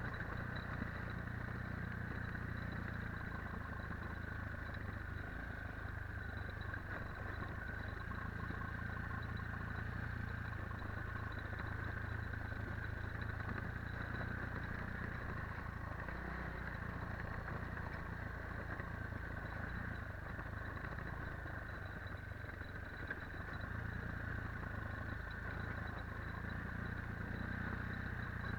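Rollei 425 quad bike's engine running steadily, its low note easing slightly about halfway through and then firming up again near the end.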